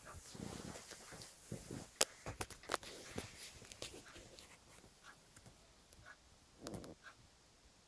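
Cat kneading a plush teddy bear: faint, irregular soft rustling of paws pressing into the fake fur, with a few sharp clicks about two to three seconds in.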